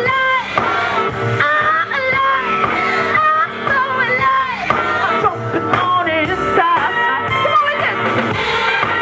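A woman singing live over a band with drums, her voice sliding between notes.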